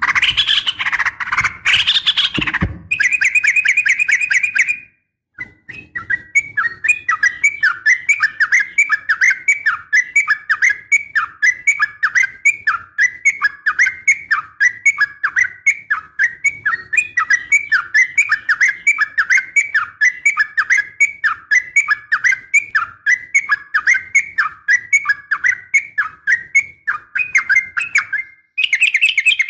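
Yellow-vented bulbul (trucukan) calling: a burst of loud calls, a short pause about five seconds in, then a long run of fast, evenly repeated chattering notes. The uploader presents it as a female calling to a male.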